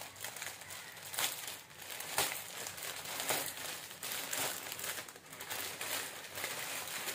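Thin plastic courier bag and the clear plastic packet inside it crinkling and crackling as they are pulled open and handled, in many short irregular crackles.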